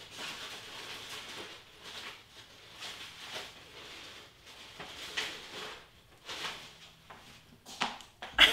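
Irregular rustling and handling noises: paper scraps being searched through for a discarded cardstock piece.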